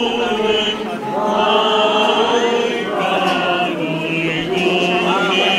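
A group of voices singing Orthodox liturgical chant in long held notes that step slowly in pitch.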